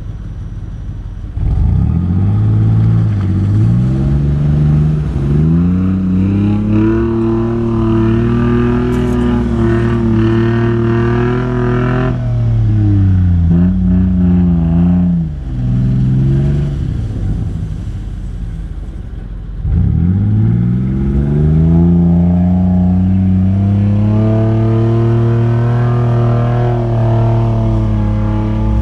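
1997 Honda Passport's engine revving under load while climbing through snow. The pitch climbs about a second and a half in and holds high, falls away past the middle, then climbs again about two-thirds of the way through and holds.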